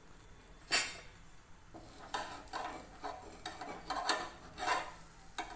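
Utensil and pan sounds on a tava while a jowar bhakri cooks: a sharp clink about a second in, then an irregular run of short scraping and knocking sounds as the bhakri is worked loose and turned over.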